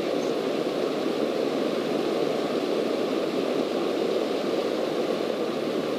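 Cabin noise of a single-engine Cessna in flight: engine, propeller and airflow blending into a steady, even noise with no distinct tone.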